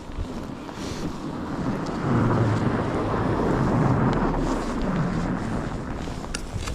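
A motor vehicle passes, its noise swelling about two seconds in and fading after about five seconds, over wind noise on the microphone.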